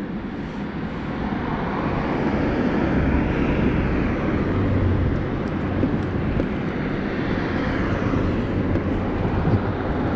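Motor vehicle noise, engine and tyres. It grows louder over the first few seconds, then holds steady with a low hum.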